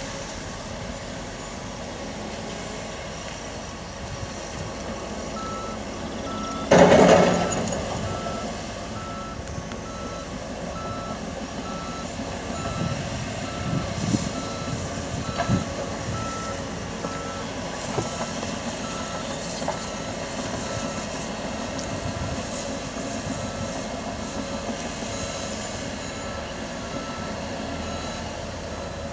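Heavy equipment's backup alarm beeping at an even pace as a machine reverses, over the steady run of diesel machinery. A loud, short burst of noise about seven seconds in.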